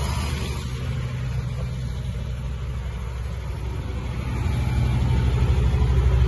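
Diesel engine of a 275 kVA generator set running at steady speed: a deep, even drone. It dips a little in the middle and grows louder again about four seconds in.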